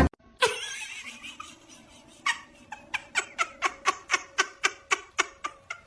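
A run of short, sharp taps or clicks, about four a second, starting about two seconds in.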